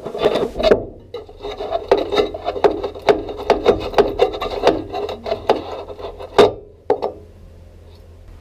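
Hand scraping on the steel window frame of a 1970 VW Type 2 bus, in quick repeated strokes about three a second, followed by two sharp knocks near the end.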